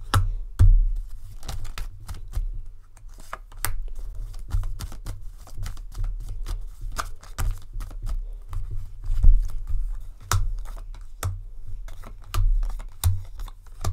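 Tarot cards being shuffled and handled: a string of irregular sharp papery clicks and flicks, with dull low thumps among them.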